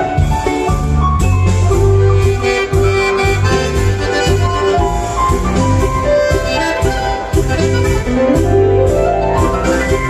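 Diatonic button accordion (organetto), amplified through a PA, playing a quick dance tune over a pulsing bass backing, with a rising run of notes near the end.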